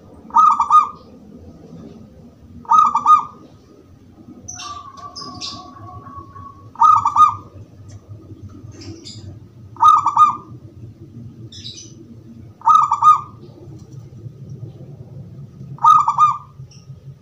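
Zebra dove (perkutut) cooing: six short, clear phrases repeated about every three seconds. A longer steady whistle-like tone sounds about five seconds in, with a few faint high chirps, over a low background rumble.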